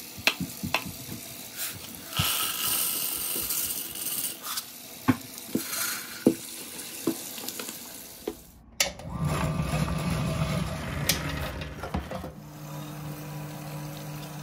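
Tap water running into a plastic tub of small cast silver bars and pieces, the metal clinking and rattling in many sharp ticks as the pieces are stirred. After a cut the water runs on into the soapy tub with a fuller, lower rush, and a steady low hum comes in near the end.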